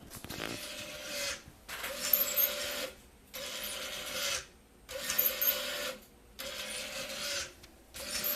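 A motorised switch test rig cycling. A small motor or actuator runs in stretches of about a second separated by short pauses, and a pair of sharp clicks sounds roughly every three seconds as the switch is pressed and released.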